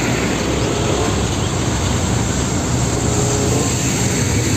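Heavy Tata dump trucks driving past in a convoy: a steady engine hum under loud road and tyre noise.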